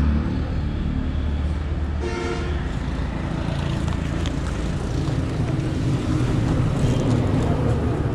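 Steady low rumble of road traffic running past on the highway, with a vehicle horn sounding briefly about two seconds in.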